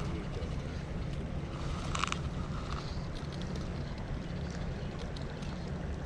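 Steady low rumble of wind on the microphone over the rush of a shallow creek, with one brief high-pitched sound about two seconds in.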